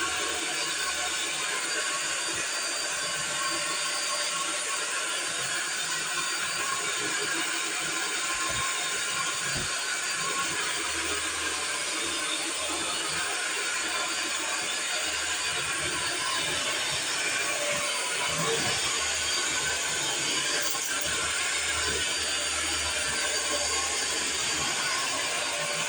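Vacuum cleaner running steadily, a constant whooshing hiss.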